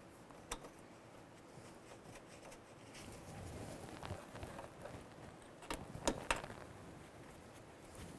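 Faint clicks and light knocks of a metal bracket and screws being fitted by hand to a car door, with a few sharper clicks a little past the middle.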